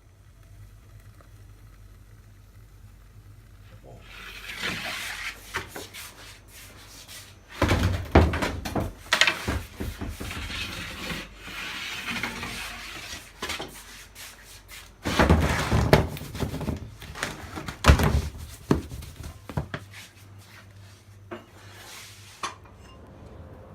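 Hard objects scraping and rubbing against one another, broken by several heavy knocks, the loudest about halfway and two-thirds of the way through.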